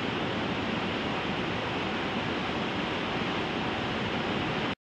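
Whitewater rapids rushing steadily, a dense, even roar of tumbling water that cuts off abruptly near the end.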